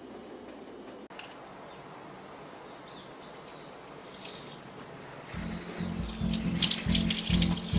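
Water running from a tap into a sink, splashing louder near the end. Background music with a steady beat comes in about five seconds in.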